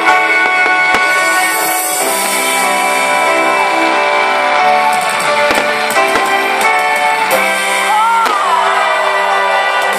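Loud rock music with guitar, with gliding notes near the end.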